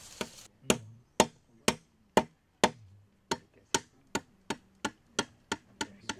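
A hand tool striking something over and over, about fourteen sharp blows at roughly two a second, coming a little faster toward the end.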